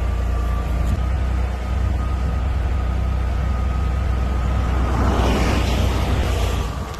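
Engine of an 8 gallon-per-minute pressure washer running steadily, a low drone with a faint steady whine over it. From about five seconds in, a broad hissing rush swells and fades away just before the end.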